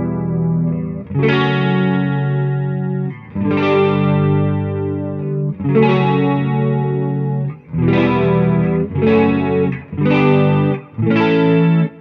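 Electric guitar strumming chords through a clean amp tone with pitch-shift shimmer: a Line 6 HX Effects '80s clean' preset into a BluGuitar Amp 1 on its clean channel. A new chord is struck every one to two seconds and each is left to ring.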